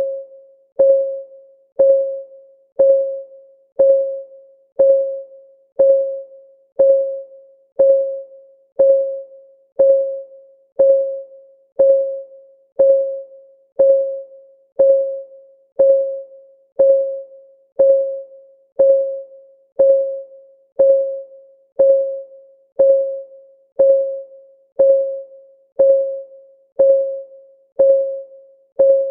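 Countdown timer's clock ticking sound: one short tick every second in perfectly even time, each tick a clear pitched note that dies away quickly.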